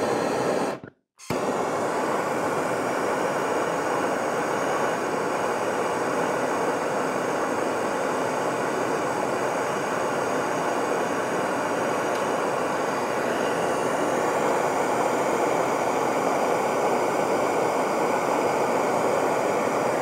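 Propane torch with a high-capacity tip burning with a steady hiss while it heats aluminum coil tubing to solder a leak. The sound cuts out briefly about a second in, then runs on evenly.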